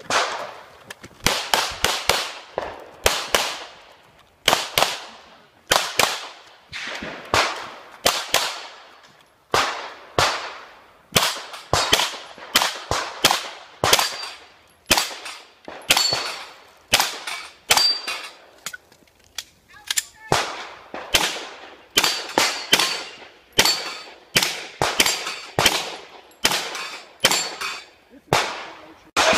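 Semi-automatic pistol fire during a practical-shooting stage run: dozens of quick shots in strings of two to four, with short pauses between strings and one longer pause a little before two-thirds of the way through.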